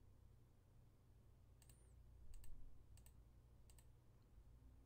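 Near silence with a few faint computer clicks, starting about a second and a half in.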